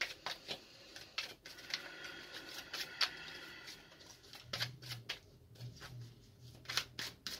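A tarot deck being shuffled by hand: a run of irregular card snaps and taps, with a softer rustle of cards sliding against each other in the first half.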